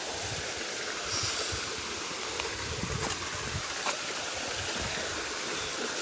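Steady rush of stream water running over rocks, with a few faint knocks of shoes stepping on rock.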